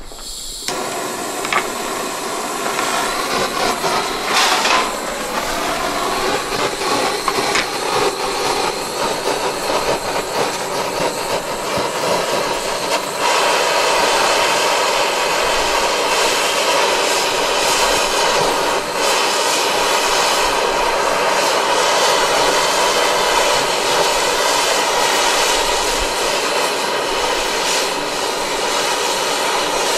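Handheld gas-canister torch burning with a steady rushing hiss, heating a knife's tang so it can be fitted into its wooden handle. It starts suddenly about half a second in and gets a little louder about halfway through.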